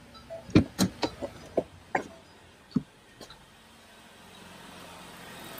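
The 2017 Ford Police Interceptor Utility's newly installed engine idling just after its first start, heard faintly at first and growing steadily louder over the last second or two. In the first three seconds a string of sharp knocks and clicks sounds close by.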